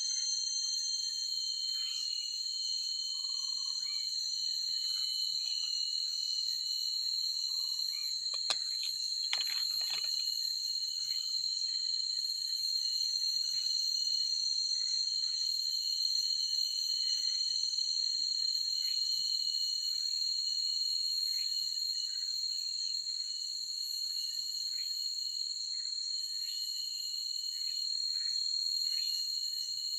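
Forest ambience dominated by a steady, high-pitched insect drone of several continuous tones, with many short chirps scattered over it. A single sharp click sounds about eight and a half seconds in.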